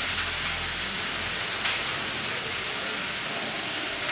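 Chopped onions and spice pastes sizzling steadily in ghee in a frying pan.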